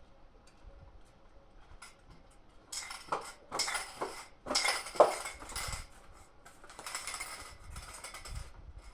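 Clattering and clinking of hard objects being handled, in a run of irregular bursts that starts about three seconds in and is loudest in the middle.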